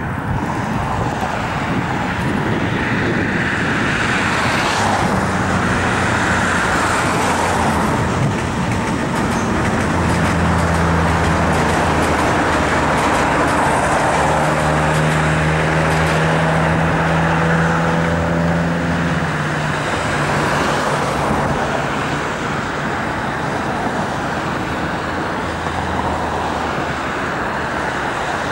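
Blue-and-yellow electric metro train running past, a steady rumble of wheels on rail with a humming tone that is strongest around the middle.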